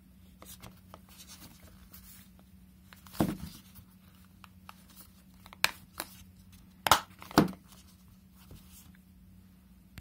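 Plastic clicks and knocks from a round wireless remote control as its back cover is twisted shut and the remote is handled on a table. Scattered small clicks, with a louder knock about three seconds in and several sharper clicks between about five and a half and seven and a half seconds.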